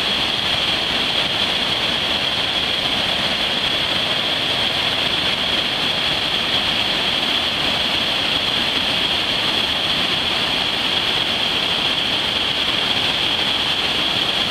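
Waterfall cascades rushing: a steady, even roar of falling water, with a steady high-pitched whine running through it.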